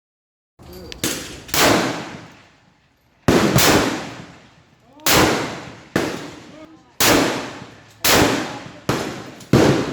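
Centrefire rifle shots on a shooting range: about nine sharp reports at uneven intervals, some under a second apart, from several rifles. Each report is followed by a long echoing tail. The shots begin about half a second in, after dead silence.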